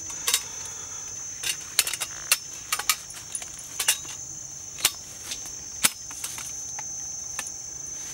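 Steady high-pitched insect drone, with irregular sharp clicks and knocks of something being handled.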